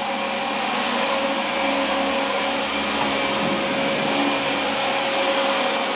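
Vacuum cleaner running steadily, a dense whooshing motor noise with a faint steady whine over it.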